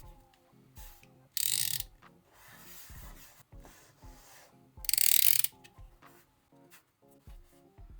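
Two short, harsh rasping noises, each about half a second long and about three seconds apart, over soft background music with a repeating melody.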